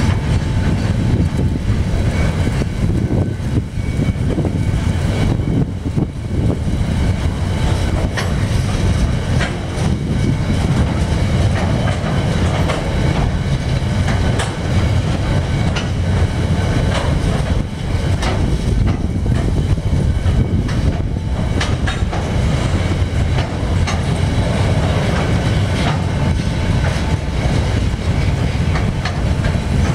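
Freight train wagons rolling past at close range, a loud steady running noise of steel wheels on rail, with repeated clicks as the wheels cross rail joints.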